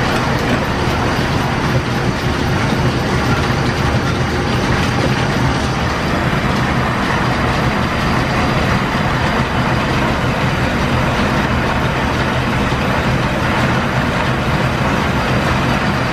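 Metal lathe running steadily under power while a single-point tool turns a main journal on an old wrought-iron engine crankshaft: a constant drone of gears and drive with the scrape of the cut.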